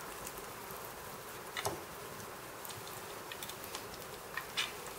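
Faint handling of raw chicken meat on a glass cutting board, with a few soft clicks and taps, over a steady background hum.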